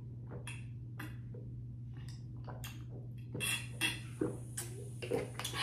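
Eating and food-handling sounds from a seafood boil: scattered soft clicks and crackles, with a cluster of louder ones about three and a half seconds in, over a steady low hum.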